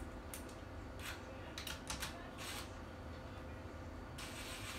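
Small parts and hand tools clicking and tapping against the replica Smart Gun prop as it is being assembled, several quick clicks about two seconds in, then a scratchy rasping noise starting near the end.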